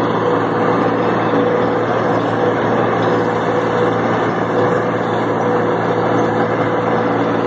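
International Harvester 1256 tractor's six-cylinder diesel engine running steadily under load while pulling a disc chisel, with a steady humming tone and no change in speed.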